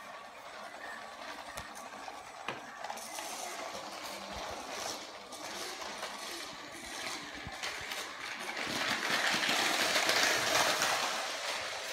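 Lego high-speed passenger train running on plastic Lego track, its wheels clattering and rattling over the rails. It grows louder about two-thirds of the way in as the train comes close.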